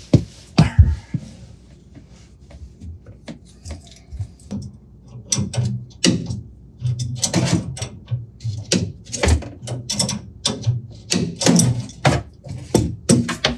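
Knocks, clicks and rustling of hands and tools working on metal fittings under a kitchen sink as the new faucet's bolts are tightened. There are a couple of louder thumps in the first second and a busy run of clicks in the second half.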